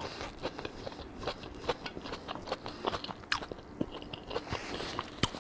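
Chewing and biting into a beef tongue taco: irregular small crunches and clicks.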